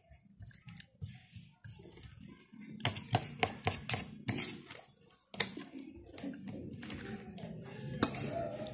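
Metal fork and spoon clinking and scraping against a plate of noodles while eating, in quick runs of small clicks, with one sharp clink near the end. Low, uneven chewing sounds run underneath.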